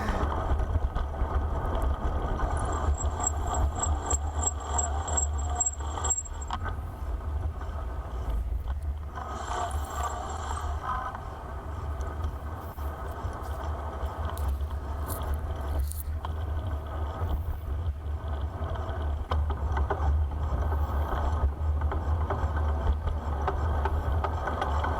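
Wind buffeting the microphone and tyre and road noise from a bicycle ride, with some rattling from the bike. A faint high-pitched pulsing whine comes in a couple of seconds in for about four seconds, and again briefly around ten seconds.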